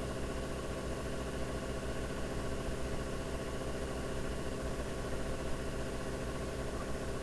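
Steady machine hum with several held tones and a low throb underneath, unchanging throughout.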